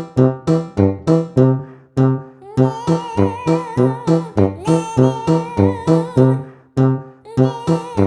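Background music: plucked guitar notes in a steady rhythm of about three a second. About two and a half seconds in, a wavering melody line joins them, breaking off twice.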